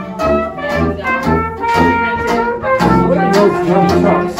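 Small traditional jazz band playing an instrumental passage without singing: brass horn lines over strummed guitar and tenor banjo, with a sousaphone bass line marking the beat.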